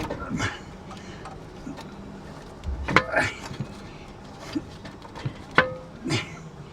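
Scattered metallic clinks and knocks of tools and driveshaft parts being handled, with a few louder ones about halfway through and near the end.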